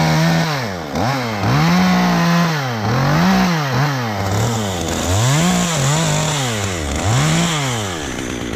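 Two-stroke chainsaw revved up and let back down over and over, about once a second, its pitch climbing and briefly holding at the top before dropping back.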